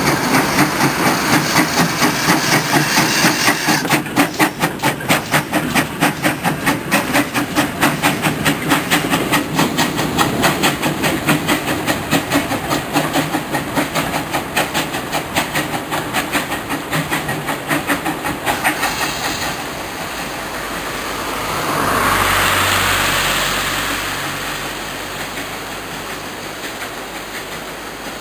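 GWR 0-6-0 pannier tank steam locomotive working an autotrain, with a rapid regular beat as it runs and a swell of steam hiss about two-thirds of the way through; the sound fades toward the end as the train draws away.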